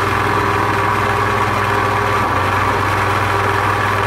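Countertop blender motor running steadily at high speed, grinding tofu and soy milk into the creamy soup base for kongguksu.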